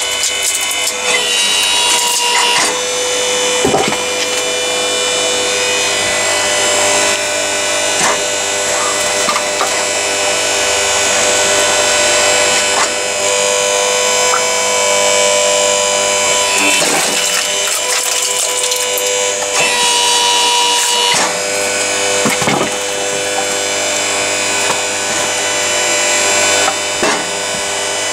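Electric motor and hydraulic pump of a Balfor SBF 800 8-tonne vertical log splitter running steadily as the V-shaped wedge is forced down through a firewood log. Several sharp cracks of the wood giving way are heard at intervals.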